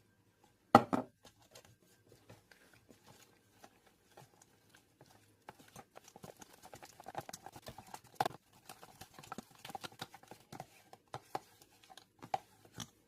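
A whisk beating crumpet batter in a mixing bowl, a quick irregular run of taps and clicks as it knocks around the bowl while the added water is mixed into a lump-free batter. One sharp knock about a second in.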